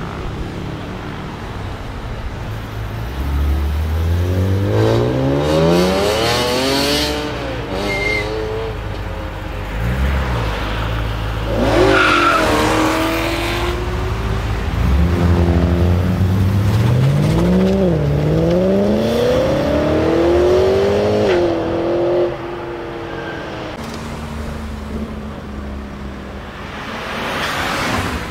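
A series of BMW M3s accelerating hard away: first an E46 M3's straight-six revving up through the gears, then an E92 M3's V8 revved sharply and pulling away with quick upshifts, the pitch climbing and dropping back at each change. Near the end a steadier, lower engine note from an F80 M3 rises briefly as it moves off.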